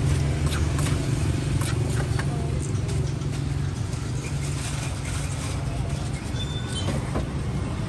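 Steady low engine rumble of street traffic, stronger in the first half. Over it come several light knocks in the first three seconds: a spoon and pestle clacking against a wooden mortar as green papaya salad is mixed.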